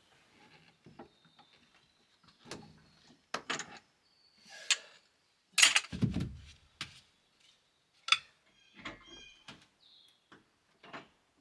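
Scattered knocks, scuffs and clicks of hands-on work under a building, with one heavier thud about six seconds in. Birds chirp briefly in the background.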